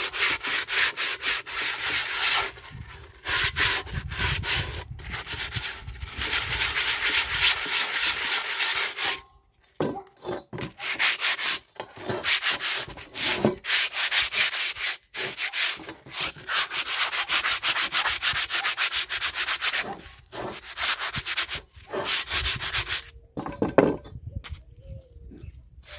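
Sandpaper rubbed by hand in quick back-and-forth strokes over an old cast-iron pot, scouring off rust, in bouts with short pauses between them. A brief knock near the end is the loudest moment.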